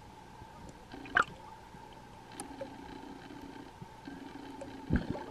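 Muffled underwater sound heard through a sealed camera diving housing: a faint steady tone and low hum with scattered small clicks, and two loud knocks, one about a second in and a heavier one near the end.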